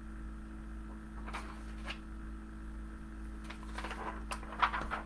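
Steady low electrical hum with a few brief, soft rustles and clicks, most of them bunched together in the last second or so.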